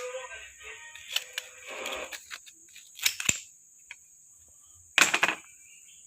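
A few sharp knocks and clinks of metal parts and tools being handled, loudest in a short cluster about five seconds in.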